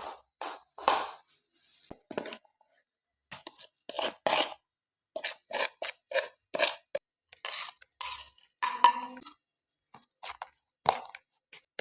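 Kitchen utensils and dishes knocking, clinking and scraping in a run of short, irregular strokes, with one clink about nine seconds in that rings briefly.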